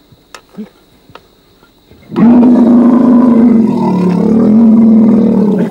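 Wild water buffalo giving one long, low, agitated bellowing call that starts about two seconds in and holds for about three and a half seconds, dipping slightly in pitch midway.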